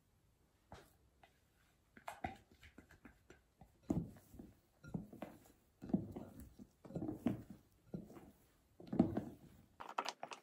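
Silicone spatula folding egg-yolk batter into meringue in a glass bowl: a few faint ticks at first, then a series of soft strokes, roughly one a second, with light scrapes and taps against the glass.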